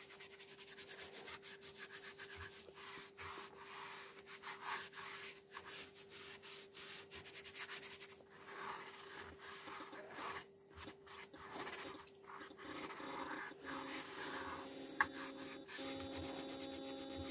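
Small sponge pad rubbed in quick back-and-forth strokes over an MDF board, working in a wax wood finish. A steady hum runs underneath, more tones join it about three-quarters of the way through, and a single sharp click comes near the end.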